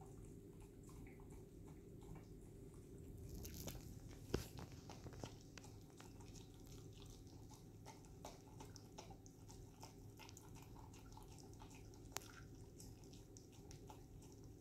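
A small dog eating from a stainless steel bowl: faint chewing and licking with many soft clicks, a sharper clink against the bowl about four seconds in and another near the end.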